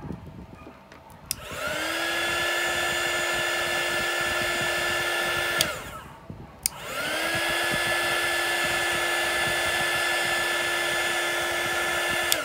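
Handheld craft heat gun switched on twice, its fan spinning up quickly to a steady whine over a rush of hot air. The first run lasts about four seconds and winds down; the second starts about a second later and runs on to the end.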